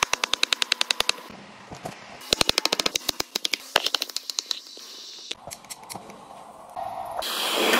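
Knife chopping fast on a cutting board: two quick runs of sharp taps, about nine a second, then scattered taps. Near the end a kitchen blowtorch lights with a steady hiss that grows louder.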